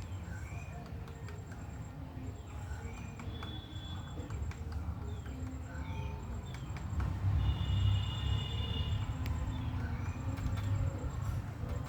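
Small birds chirping and whistling in short calls, with scattered single sharp taps and a faint, high, repeated note over a low rumble that grows louder about halfway through.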